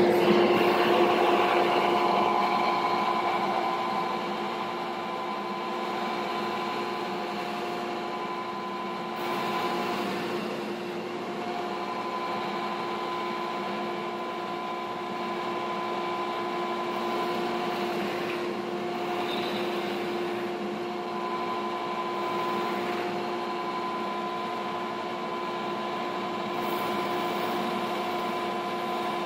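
Delta belt and disc sander running with a steady motor hum, alongside a shop dust collector, while a piece of wood is sanded against the belt and then against the disc. The sound is louder for the first few seconds, then settles to an even drone.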